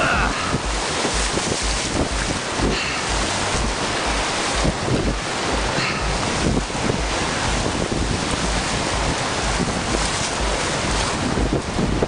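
Whitewater rapids rushing loudly around an open canoe, with wind buffeting the microphone in uneven low rumbles.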